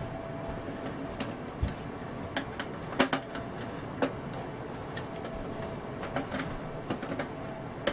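Scattered light clicks and metallic taps of small screws being worked out with a hand screwdriver and the steel bottom plate of a Sony CMT-HPZ9 mini hi-fi being handled.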